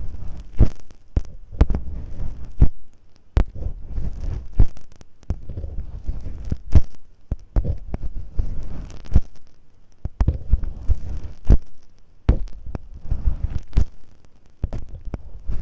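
Masking tape rubbed, scratched and pressed against a close microphone to imitate ear cleaning: irregular crinkly scraping with many sharp clicks and deep thumps.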